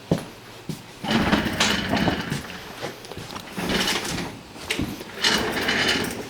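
Toolbox being handled, with a sharp click at the start and then three rough sliding, rattling noises of about a second each, as of drawers being pulled open and pushed shut.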